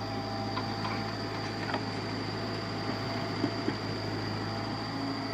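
A machine's motor running steadily, a constant hum with a high-pitched whine above it, and two light clicks a little past halfway.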